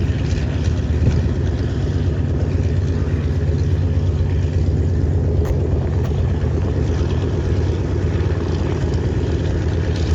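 Boeing B-29 Superfortress's Wright R-3350 radial engines running with a steady deep drone.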